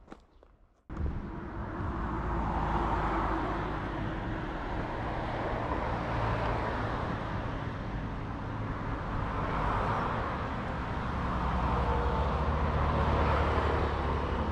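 Road traffic: steady vehicle noise with a low engine hum, swelling a few times as cars pass, cutting in abruptly about a second in.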